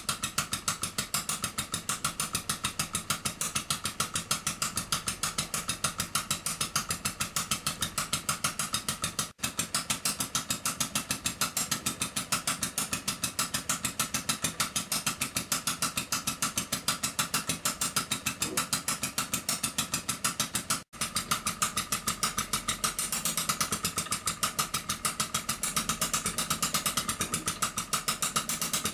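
Miniature scratch-built two-stroke crosshead hot-bulb engine running, a rapid, even beat of sharp knocks from its firing strokes. The sound cuts out for an instant twice.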